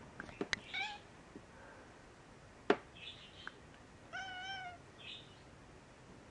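Gray tabby cat meowing: a short meow about a second in and a longer, clearer meow a little past four seconds, with a few short calls between and after. A single sharp click near the middle is the loudest sound, with a few smaller clicks near the start.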